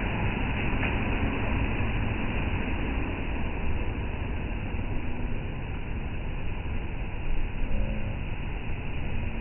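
Ocean surf at the shore: a steady, rumbling wash of breaking waves.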